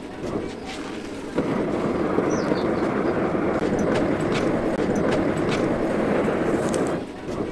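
Charcoal forge fire under forced air, a steady rushing noise as an axe head heats in the coals, with faint crackles from the burning charcoal. The rush is weaker for about the first second and a half, comes up strongly, and eases off again near the end.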